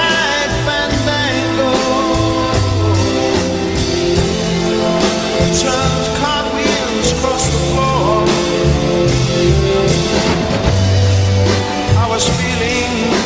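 Background rock-style music track with singing, playing steadily throughout.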